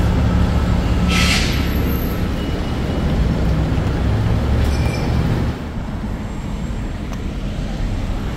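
A vehicle's steady low rumble, with a short burst of hiss about a second in and the level dropping a little about five and a half seconds in.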